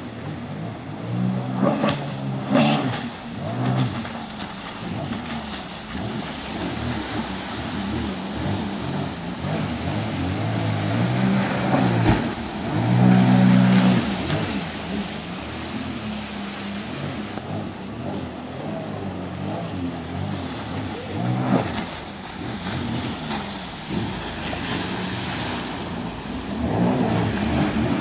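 Jet ski engine revving up and easing off over and over as it carves turns at speed, loudest about halfway through.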